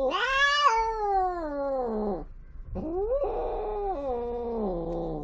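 Cat caterwauling during mating: two long, drawn-out yowls, each rising in pitch and then sliding down. The first ends about two seconds in, and the second starts just under three seconds in and runs to the end.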